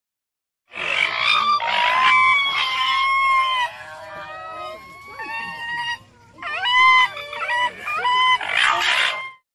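Raccoon dog (Nyctereutes procyonoides) making a string of high whining calls that waver in pitch, starting about a second in, with harsher raspy calls near the start and again near the end and a short lull about two-thirds through.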